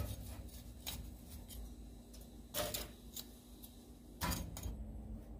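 Metal tongs setting charcoal into the steel charcoal basket of a grill's firebox: a handful of short, separate clinks and clatters, the loudest near the start, around two and a half seconds in, and just after four seconds.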